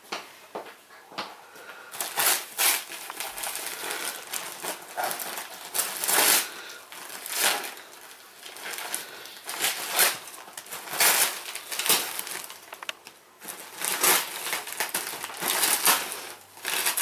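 Gift wrapping paper being ripped and crumpled by hand as a present is unwrapped, in an irregular run of crackling rustles that starts about two seconds in.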